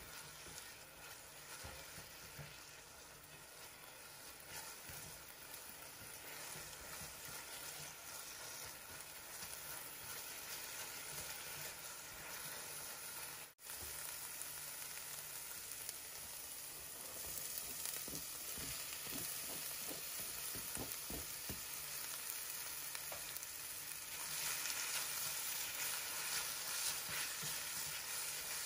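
Diced onion sizzling in hot oil in a stainless steel frying pan, stirred with a spatula. The sizzle grows louder in the second half, with chopped tomato and pepper in the pan.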